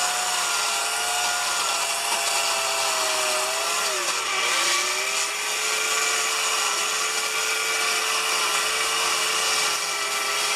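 Homelite 14-inch electric chainsaw running steadily as its chain strips bark off a log. The motor's pitch sags briefly under load about four seconds in, then recovers.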